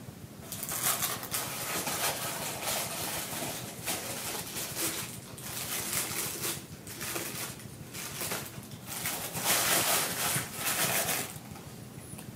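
Packing material rustling and scraping in irregular bursts while statue parts are lifted out of it by hand. The noise stops about eleven seconds in.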